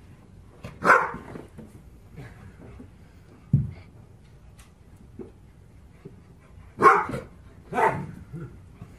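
A dog barking: one bark about a second in and two more near the end, about a second apart, with a short low thump in between.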